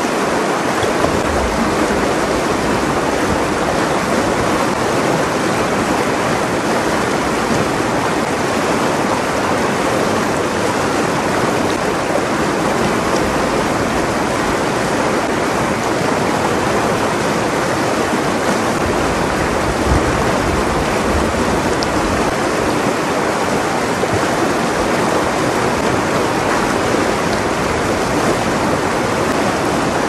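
River water rushing steadily over rocks and small riffles.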